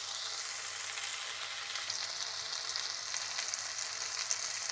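Chopped okra and tomato frying in oil in an uncovered non-stick kadhai, with a steady sizzle. From about two seconds in, a wooden spatula stirs and scrapes in the pan, adding light clicks.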